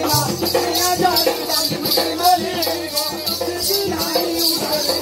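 Danda Nacha folk music: a steady rattling percussion beat, about four strokes a second, under a wavering melodic line.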